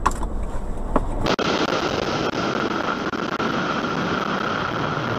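Low road rumble inside a moving car, then an abrupt switch about a second in to a motorcycle under way: a steady rush of wind and engine noise with a constant hum.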